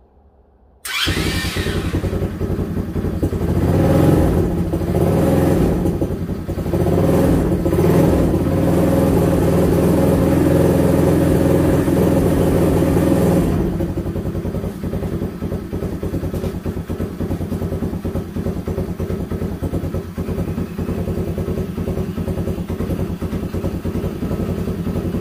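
ATV engine started with the key, catching at once about a second in, then revved up and down several times before settling to a steady idle about halfway through. It is being run to check whether a newly fitted charging relay charges the battery.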